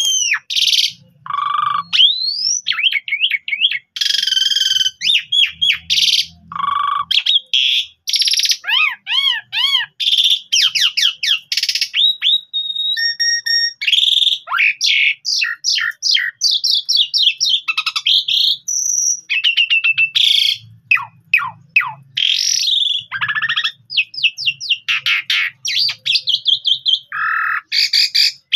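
Asian pied starling (jalak suren) singing a long, nearly unbroken song in full voice: clear whistles, quick rising and falling notes and fast repeated runs mixed with harsh, rasping calls.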